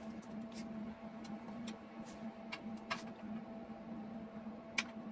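Scattered light clicks and taps of gloves, torch and metal tubing being handled while positioning for a weld, over a steady low hum. A sharper click comes near the end.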